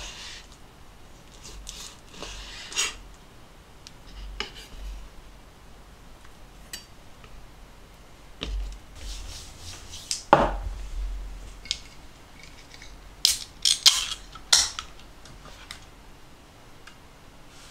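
Kitchen knife slicing raw meat on a bamboo cutting board, with the pieces scraped into a stainless steel bowl: soft cuts and scrapes with light knocks, then a few sharp clicks about ten seconds in and a loud cluster of clicks and clinks near the end.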